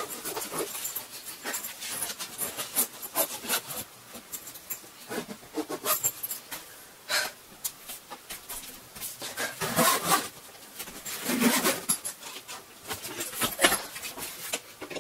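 Clothes and a soft-sided suitcase being handled during packing: fabric rustling and handling noises in irregular bursts.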